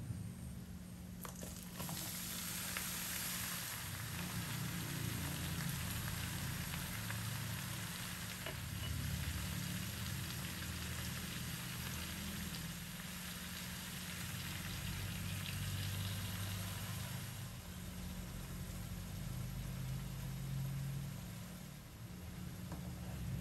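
Raw pork cubes with onion and garlic sizzling in a hot stainless-steel wok: a steady frying hiss, loudest a couple of seconds in, over a low hum.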